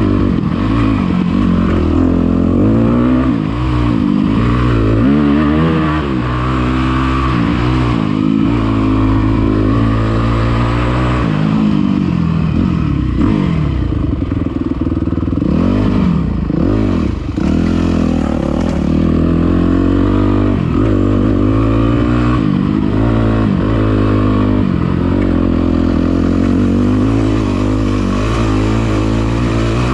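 Dirt bike engine revving and easing off over and over, its pitch rising and falling with the throttle and gear changes.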